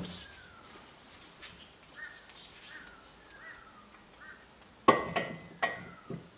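A few sharp metal clinks and knocks, about five in the last second and a half, as the cylinder barrel block of an Ariel Square Four engine is worked down over its ring-clamped pistons. Under them runs a steady high-pitched insect drone, with faint bird chirps midway.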